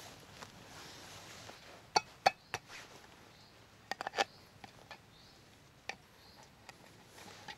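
A handful of sharp clicks and knocks from a knife working at a piece of wood held in the hand, a few of them with a brief metallic ring and a quick run of them about four seconds in. Before that, a soft scraping of hands brushing loose soil.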